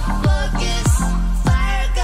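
Background music with a steady beat: deep bass drum hits that slide down in pitch, under a melody.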